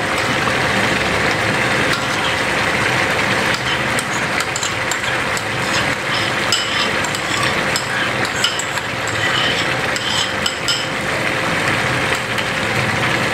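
Chicken karahi curry simmering and sizzling in a wok with a steady hiss, just after yogurt has been added on top. Small pops and crackles come through from about four to eleven seconds in.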